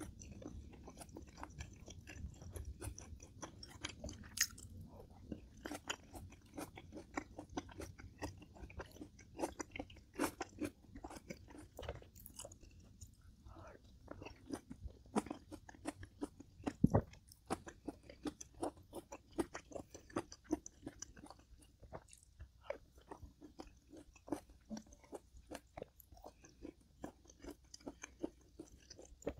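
A person chewing and crunching food, a dense run of small wet clicks and crunches, with one sharper, louder click a little past the middle.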